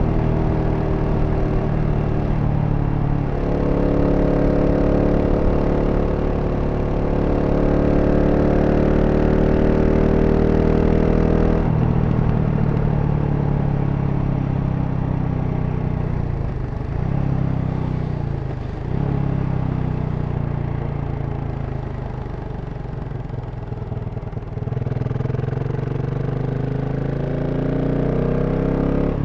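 2023 GasGas SM 700 supermoto's single-cylinder engine through its stock exhaust, under way: it holds a steady note for several seconds, the throttle rolls off about a third of the way in, and the engine note dips twice and settles lower before picking up again near the end.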